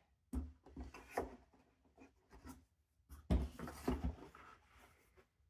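Handling noise: soft knocks and rubbing as a portable monitor in its folding cover is set down on a table and handled. The loudest knocks come a little past the middle.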